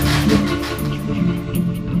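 Background music: a melody of short pitched notes changing every fraction of a second over a regular ticking beat.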